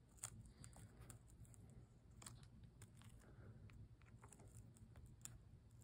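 Near silence: room tone with a low hum and a few faint, scattered clicks.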